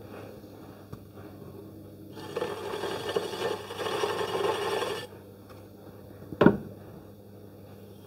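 Electric potter's wheel running with a steady motor hum, while a wooden tool scrapes clay from the spinning wheel head around the funnel's base for about three seconds. A single sharp knock comes a little after.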